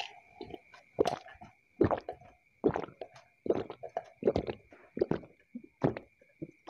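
Close-miked gulping as a man drinks from a glass mug: a steady run of swallows, a little more than one a second.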